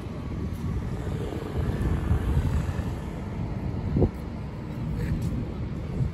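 Steady low rumble of city street traffic, with a single thump about four seconds in.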